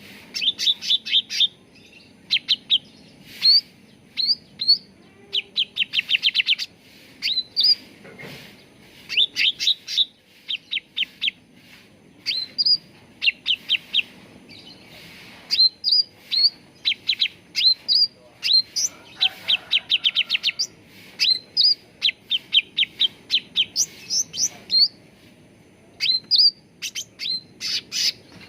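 Cucak ranting songbird calling: quick trilled runs of sharp chirps alternating with single short upslurred whistles, repeated over and over.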